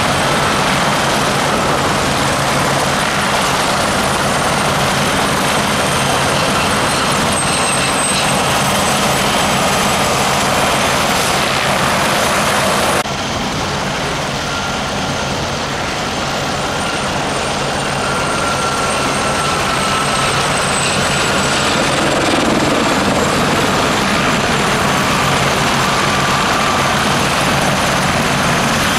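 Westland Gazelle HT3 helicopters in display flight: a steady rotor thrum under a broad turbine rush, with a faint high whine that glides slightly down in pitch. About 13 seconds in the sound drops abruptly and duller, then slowly builds again.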